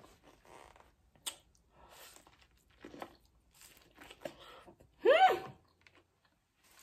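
Close-up chewing and crunching of buttered corn on the cob, bitten off the cob, with a sharp click about a second in. About five seconds in comes a short hum of enjoyment that rises and falls in pitch, the loudest sound.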